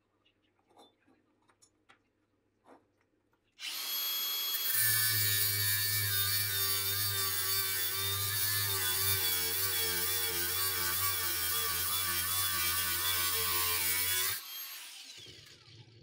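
Angle grinder with a thin cut-off disc starting up about three and a half seconds in and cutting through a small metal block clamped in a vise for about ten seconds. It is then switched off and winds down. Before it starts, a few light taps of handling.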